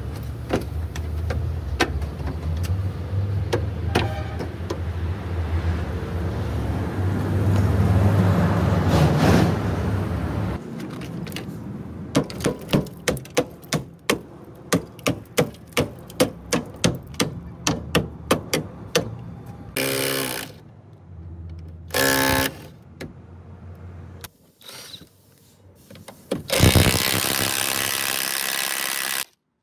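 A steady low hum with scattered knocks, then about sixteen sharp metal strikes, roughly two a second, as a long metal tool hammers at the rusted steel wheel-arch panel of a truck cab. After that a cordless impact wrench runs in two short bursts and then for about two and a half seconds near the end, stopping suddenly.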